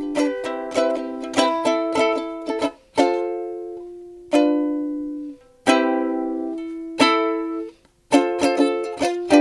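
Outro music: strummed plucked-string chords. The quick strumming slows to single ringing chords about halfway through, then picks up again near the end.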